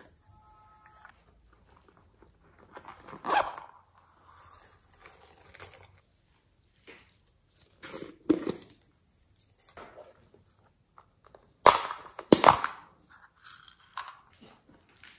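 Small hard plastic containers and lids clicking and knocking as they are handled and glitter and sequins are shaken out onto slime, with soft rustling in between. The loudest are two sharp clacks about three-quarters of the way through.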